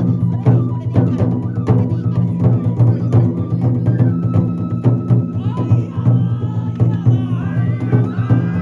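Traditional Japanese lion dance (shishimai) festival music: drum beats in a steady rhythm, with a wavering high melody joining about halfway through.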